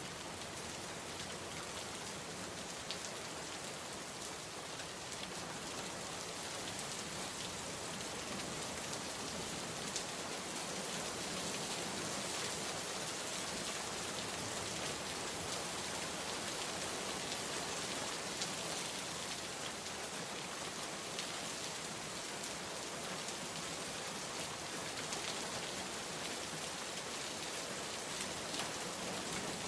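Steady rain falling on a surface, a dense even hiss with scattered individual drop patters.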